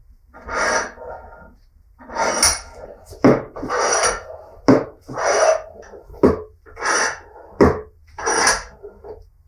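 Six rasping scraping strokes by hand, about one every second and a half and each about half a second long, with a sharp click between several of them.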